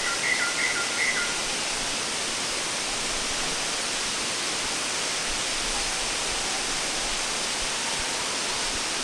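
Waterfall cascading: a steady, even rush of falling water. A few short high calls sound in the first second or so.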